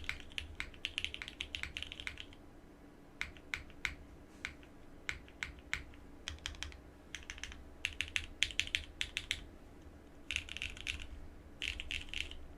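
Typing on a Frog mini mechanical keyboard with BCP switches and GMK Katakana keycaps: quick runs of keystrokes broken by slower single key presses. A faint steady low hum lies underneath.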